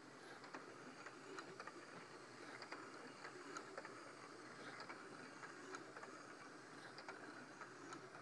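Near silence: faint room hiss with scattered soft, irregular clicks.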